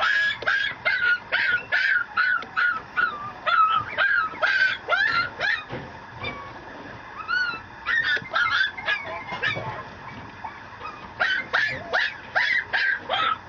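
Mameshiba (mini Shiba Inu) puppy yapping in quick high yips, about three a second. The yips break off for a few seconds in the middle, with a couple of thin whines, then start again near the end.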